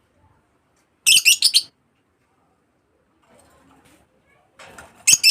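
Pet birds chirping: a quick run of loud, high, rapid chirps about a second in, then another short burst of chirps near the end.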